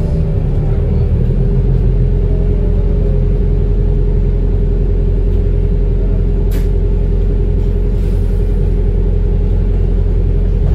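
Wrightbus New Routemaster (NB4L) diesel-electric hybrid double-decker on the move, heard inside the passenger cabin: a steady low rumble with a steady hum. A faint whine falls in pitch over the first few seconds, and a single brief click sounds about six and a half seconds in.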